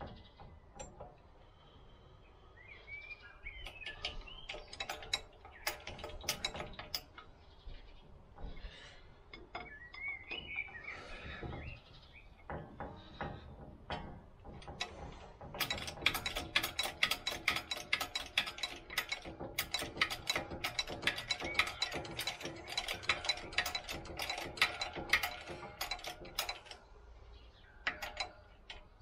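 Rapid, ratchet-like metallic clicking from work at a hydraulic shop press while a brush cutter crankshaft is pressed apart. The clicks are sparse at first, come thick and fast through the second half, then stop near the end. A bird chirps twice in the first half.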